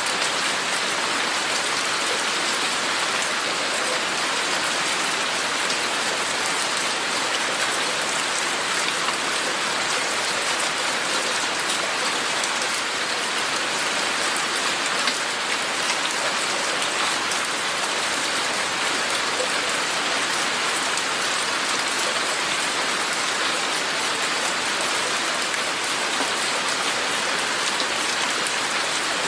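Steady rain falling, a dense even hiss of drops pattering on surfaces, with many small individual drop ticks.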